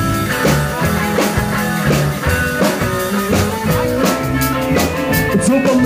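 Live rock band playing an instrumental passage: electric guitar, upright double bass and drum kit, with steady regular drum beats under the guitar line.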